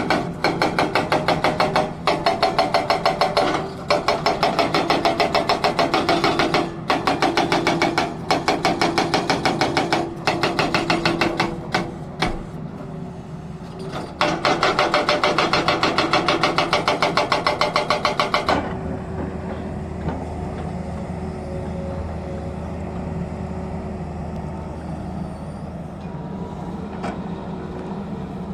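Excavator-mounted hydraulic rock breaker hammering rock in rapid strikes, several a second, in runs with brief pauses. It stops about two-thirds of the way in, leaving the excavator's diesel engine running steadily.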